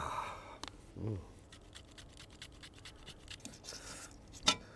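Metal fork and tongs scraping and clicking against a stainless steel pan while twirling creamy linguine, with many small ticks and one sharper clink near the end. A man gives a short hum about a second in.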